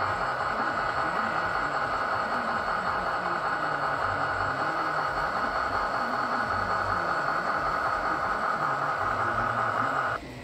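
Model railroad turntable turning with a locomotive on its bridge: a steady mechanical whine over a low rumble. The whine cuts off suddenly near the end, leaving a quieter rumble.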